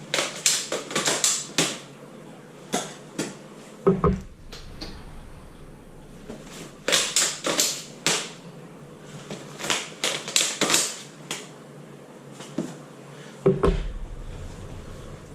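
G&G ARP9 airsoft rifle being handled through speed reloads with stick magazines: quick runs of sharp plastic and metal clacks as magazines are released and seated. There are two dull thuds, one about four seconds in and one near the end.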